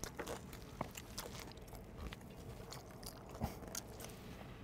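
People biting and chewing crunchy toasted bruschetta bread: a loose string of small, crisp crunches.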